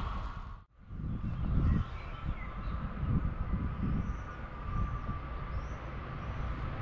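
Uneven low rumble of wind on the microphone over a faint steady hum, after a brief drop-out under a second in. A small bird chirps about five times in the middle.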